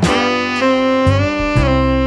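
Background music: a melody of held notes, changing a few times, over a steady bass line.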